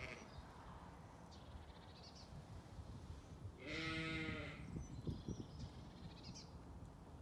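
A Zwartbles sheep bleats once, a single wavering call of under a second, about halfway through; otherwise only faint background with a few small rustles.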